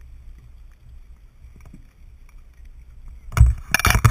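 Low rumble of wind and lake water lapping around a capsized sailing dinghy. About three seconds in come loud knocks and rushing noise on the microphone as the camera is jolted and tips up toward the sky.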